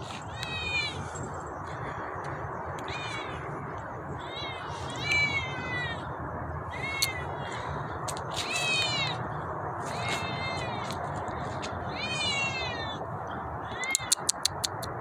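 Kitten meowing repeatedly: about ten short, high-pitched meows a second or so apart, over a steady background hiss. A quick run of clicks comes near the end.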